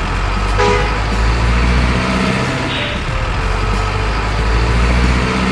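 Heavy diesel truck engine sound running steadily at a low rumble, the engine sound of a remote-control model truck. There is a short hiss about three seconds in.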